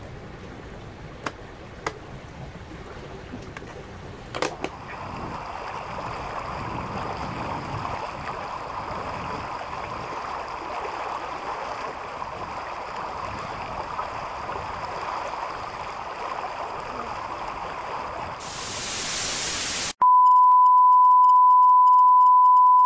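Steady rush of water and wind past a sailing yacht under way, with a few sharp clicks, growing louder about five seconds in and ending in a brief loud hiss. Near the end the sound cuts abruptly to a loud, steady single-pitch beep.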